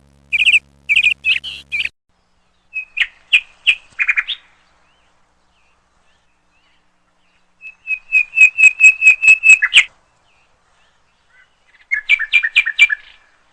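Woodpecker calling in bursts of sharp, repeated high notes. The longest is a fast run of about ten notes around eight to ten seconds in, with a shorter burst near the end.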